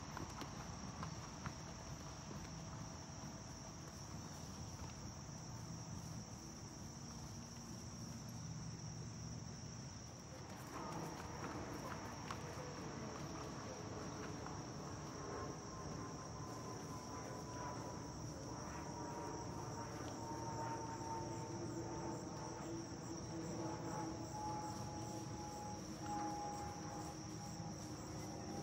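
Steady high-pitched insect chorus, crickets chirring without a break, with faint hoofbeats of a cantering horse on turf.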